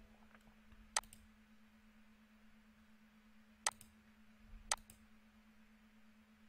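Computer mouse button clicking, three faint sharp clicks: one about a second in, then two more a second apart. A steady low electrical hum runs underneath.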